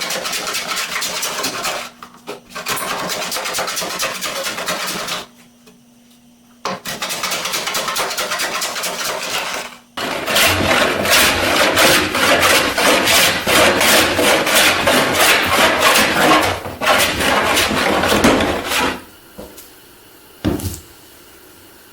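Small steel hand plane taking shavings across a glued-up wooden board panel, a rasping scrape stroke after stroke as it works down a high spot. The strokes run in long stretches with brief pauses about two seconds in and again around five to seven seconds, and stop a few seconds before the end.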